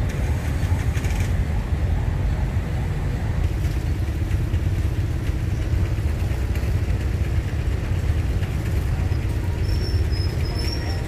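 Steady low rumble of street traffic with motorbikes and cars. A brief high squeak comes near the end.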